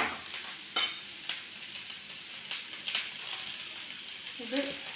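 Chopped onions and green chillies frying in hot oil in a pan: a steady high sizzle, with a spoon scraping and knocking against the pan a few times as they are stirred.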